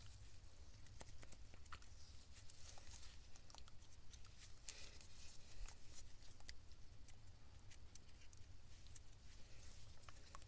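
Faint handling sounds as gloved hands work grease onto a rubber pump impeller with a paper towel: soft rustling and scattered small clicks, busiest about halfway through, over a low steady hum.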